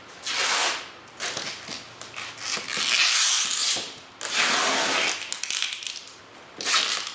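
Packing tape being pulled off the roll and pressed around a cardboard mirror carton: about five long, loud rips of tape, the longest in the middle.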